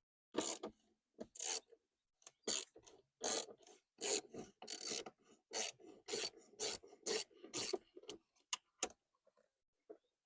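About a dozen short rasping strokes, like a file or scraper worked back and forth on a part, then stopping about nine seconds in.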